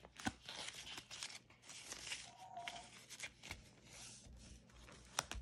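Paper banknotes and cash envelopes rustling and crinkling as bills are handled and moved between envelopes, with scattered light clicks and taps.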